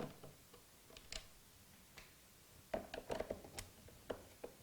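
Phillips screwdriver refitting the screws in the plastic bottom plate of a Hoover Smart upright vacuum: scattered light clicks and taps, with a quick run of them about three seconds in.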